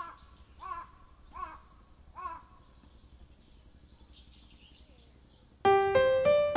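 A bird calling four times, about three quarters of a second apart, each call short and harsh, then a few faint high chirps. Loud piano music comes in near the end.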